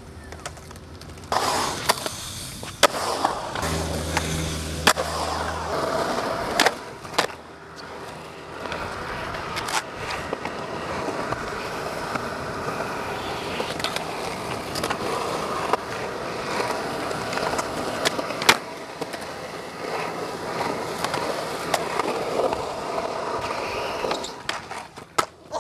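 Skateboard wheels rolling steadily over smooth concrete bowls, broken by several sharp clacks of the board striking the concrete.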